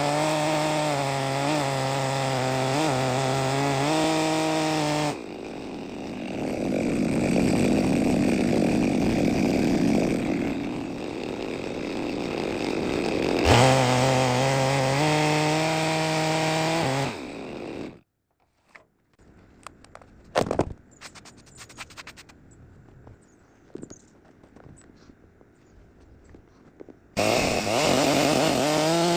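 Two-stroke chainsaw running at high revs while milling a log in a chainsaw mill. From about 5 to 13 seconds in the sound turns rougher and noisier, then the steady engine note returns. It cuts off suddenly at about 18 seconds, leaving several quieter seconds of scattered knocks and clicks, and the saw comes back near the end.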